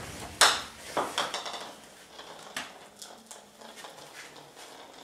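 A hit baseball knocking and bouncing on a hard floor: one sharp knock about half a second in, then a few fainter knocks and small clicks that fade away.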